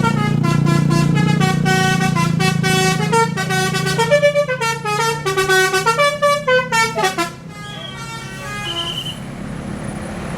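Bus telolet horn, a Basuri-type multi-trumpet air horn, playing a fast melody of pulsing notes that step up and down in pitch over a low engine drone. The melody stops about seven seconds in, followed by a few short high beeps.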